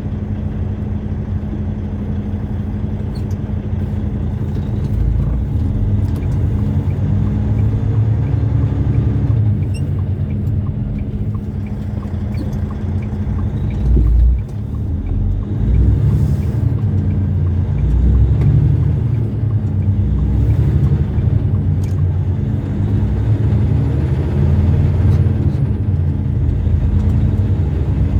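Semi truck driving down the road: a steady low engine drone and rumble, with a heavier bump about fourteen seconds in.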